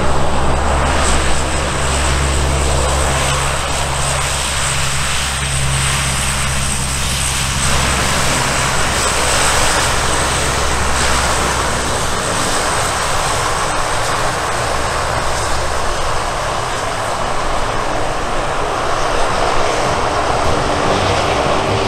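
Lockheed C-130H Hercules's four Allison T56 turboprop engines and propellers running as the aircraft moves along the runway. It is a loud, steady drone whose low propeller hum shifts and thins about halfway through as the power setting changes.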